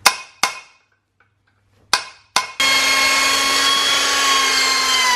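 A few sharp metal clanks of tools being handled, then a power tool starts about two and a half seconds in and runs at steady speed with a high whine, its pitch starting to drop at the very end as it winds down.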